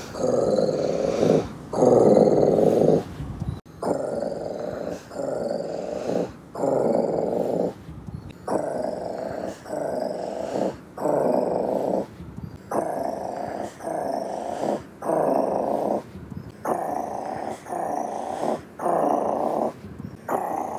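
Tiger purring: a steady run of rumbling pulses, a little more than one a second, on each in- and out-breath. It is louder for the first few seconds, then breaks off abruptly and goes on at a lower level.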